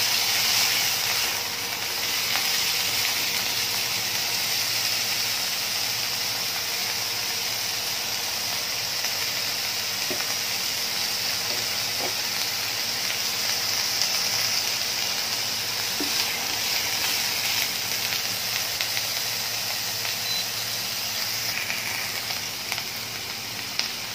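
Sliced bitter melon with garlic and ginger sizzling steadily in hot oil in a nonstick wok, with a few light clicks of the spatula.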